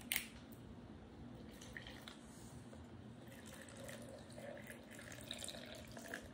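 Water pouring faintly from a plastic bottle into a plastic blender cup over fruit, after a single sharp click near the start.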